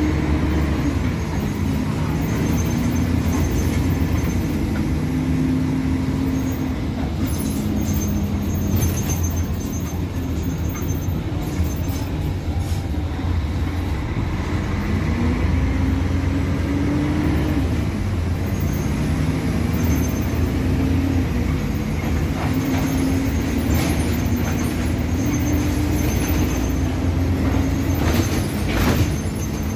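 Mercedes-Benz O-500MA articulated bus's six-cylinder diesel engine running under way. Its pitch climbs and drops back several times, most clearly about halfway through, and holds level in between. A few short rattles or knocks come through, most of them near the end.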